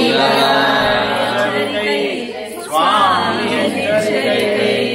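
A group of voices, men and a woman, chanting a Sri Vaishnava devotional hymn together, unaccompanied. The chant eases briefly about two seconds in, then the voices come back strongly.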